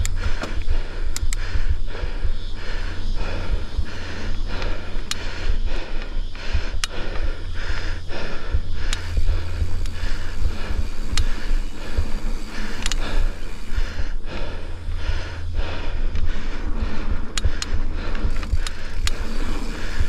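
A mountain biker breathing hard while climbing, panting about twice a second, over a steady low rumble, with a few sharp clicks.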